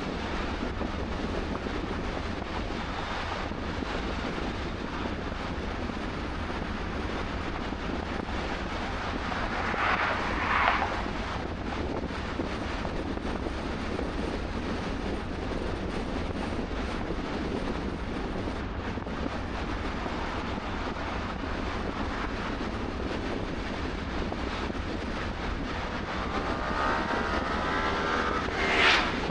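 Steady road and wind noise from a car driving on a two-lane highway. A vehicle passes briefly about ten seconds in, and a louder one with an audible engine note passes near the end.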